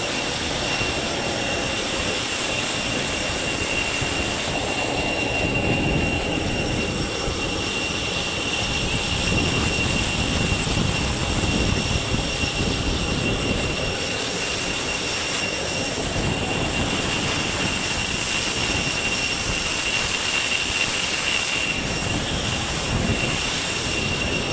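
Steady rushing noise with a constant high-pitched whine from a parked airliner's turbine machinery.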